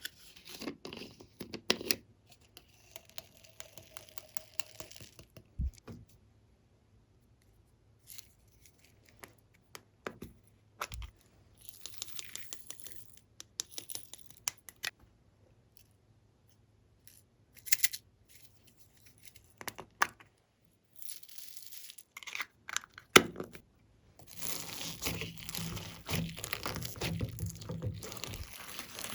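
Glossy slime being squeezed, stretched and pulled apart by hand, giving sticky clicks and short tearing noises in bursts with quiet gaps between them. Near the end, a longer unbroken stretch of squishing.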